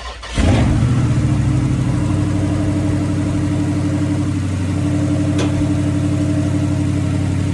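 Dodge Charger's 392 (6.4 L) Hemi V8 catching from the starter about half a second in, with a loud flare that settles into a steady idle as it warms up from a cold start.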